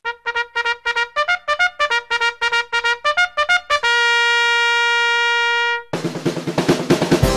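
Background music. A brass melody plays a run of quick, short notes, then one long held note about four seconds in. It cuts off suddenly near six seconds and a fuller band with drums comes in.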